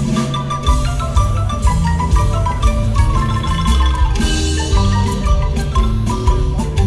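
Marimba music: mallets strike quick, repeated notes over a steady low bass line.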